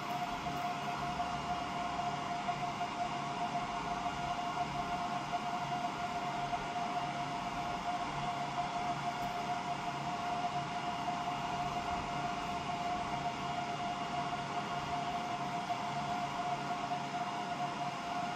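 Steady whir of a running fan, with a constant mid-pitched whine over a low hum.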